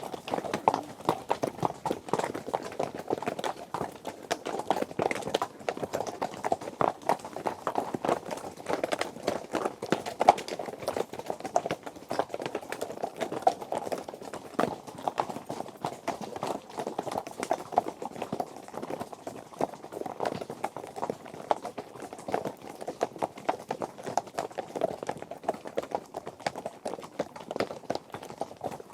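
Horse hooves galloping: a fast, unbroken stream of hoofbeats.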